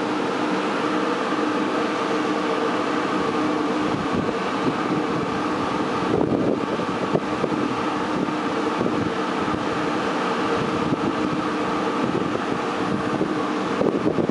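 VR Sr2 electric locomotive standing at the platform with its blowers and electrical equipment running: a steady hum with several steady tones.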